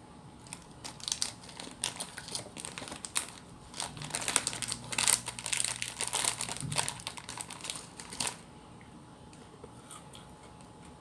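Crinkling of a plastic wrapper being handled: a run of rapid crackles that grows busiest in the middle and stops about eight seconds in.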